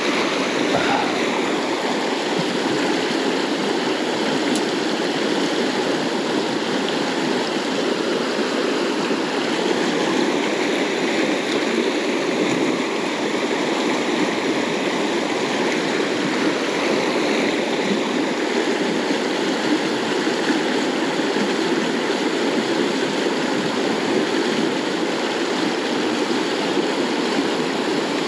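River water rushing steadily past, the river running high after a spate.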